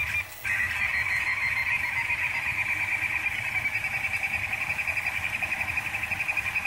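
Rostock Max delta 3D printer running a print, its stepper motors giving a steady high whine as the print head moves. The whine drops out briefly just after the start and turns into a fast, even warble about halfway through.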